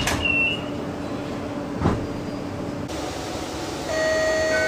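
A train's door-closing warning beeps sound for the last time, then a single thud comes about two seconds in over the carriage hum. After an abrupt change, a steady electronic door chime starts near the end, held on one chord inside a metro carriage.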